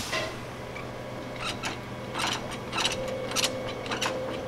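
Tie-down chain and ratchet binder being worked to secure a load: irregular metallic clicks and rattles, starting about a second and a half in, over a steady low hum.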